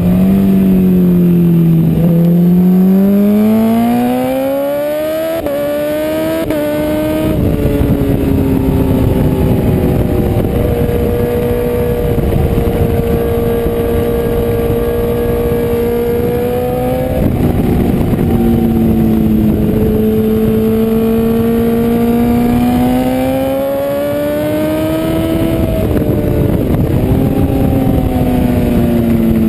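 BMW S1000RR superbike's inline-four engine at race speed, heard from an onboard camera: revs climb with sharp drops at each upshift, hold steady along a straight, climb again and fall back in steps near the end as it shifts down. A steady rush of wind noise runs underneath.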